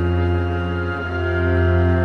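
Slow ambient background music of sustained low tones over a deep drone, the chord shifting about a second in.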